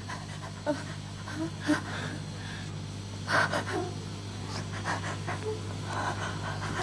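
A person breathing quickly and heavily, with short breathy gasps, over a steady low electrical hum.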